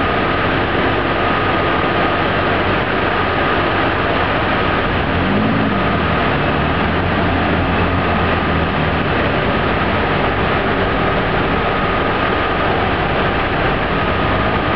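Jeep Wrangler engine running under load while its rear tyre spins and digs into soft sand, the revs rising and falling about five seconds in. A steady rushing noise runs under it.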